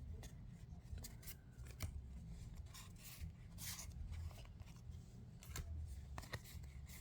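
Trading cards being handled and flipped through: scattered soft clicks and brief rustles.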